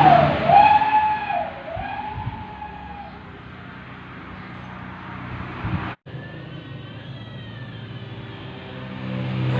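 A siren wailing, its pitch rising and falling, loudest at the start and fading away over the first few seconds. After a short break, a fainter siren sweep returns, and a motor vehicle's engine grows louder near the end.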